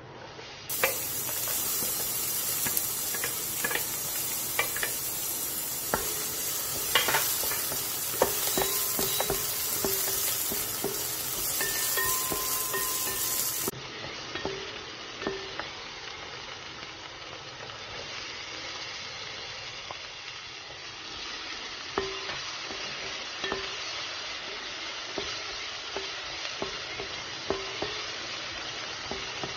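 Chopped onion, and later diced bell peppers, sizzling in hot olive oil in a frying pan, stirred with a wooden spatula that knocks and scrapes against the pan now and then. The sizzle starts sharply about a second in, is louder in the first half, and drops to a quieter fry after a cut near the middle.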